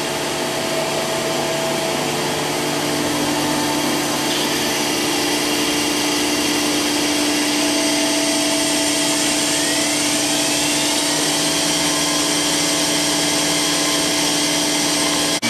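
Okuma MCR-B II machining center's standard 8,000 RPM spindle attachment spinning up over the machine's steady running noise. A whine rises in pitch over about two seconds, around ten seconds in, and then holds steady at speed.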